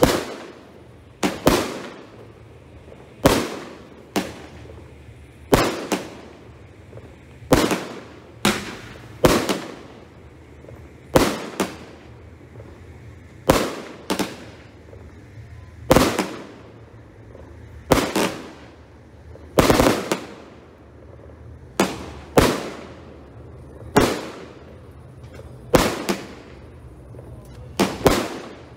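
F2-category aerial fireworks fired in a steady sequence, a sharp echoing bang about every one and a half to two seconds, sometimes two in quick succession.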